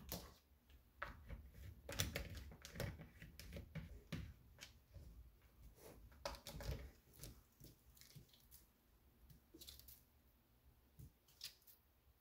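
Faint, irregular clicks and rustles, busier in the first half and sparse near the end.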